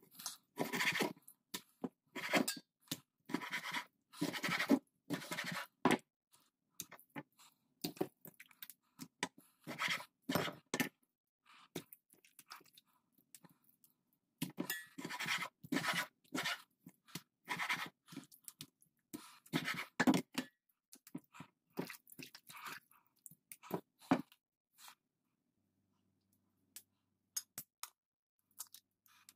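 Kitchen knife cutting fish fillet on a wooden chopping board: short crunching and scraping strokes in bursts with pauses between. The strokes thin out to a few faint clicks near the end.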